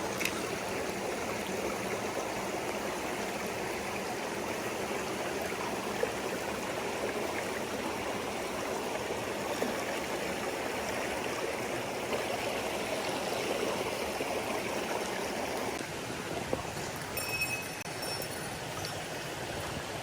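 Mountain stream water rushing steadily over rocks, a little quieter from about 16 s in, with a few faint high chimes near the end.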